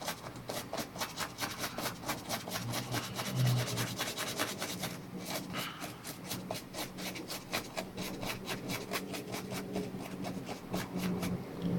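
A small brush scrubbing across a laptop circuit board in rapid back-and-forth strokes, about six a second, with a brief pause about five seconds in, sweeping flux and solder residue off the board.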